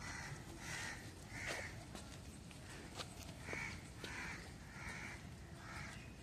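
Crows cawing: about seven short, harsh caws, a run of three and then, after a pause, a run of four.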